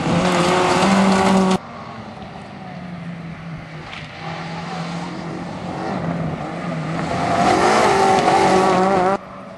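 Rally car engines at full throttle on a gravel stage. A Peugeot 106 runs loud and close until a sudden cut about a second and a half in. Then a Peugeot 206 approaches, growing louder until it passes close near the end, its engine pitch rising and falling with the throttle, before another sudden cut.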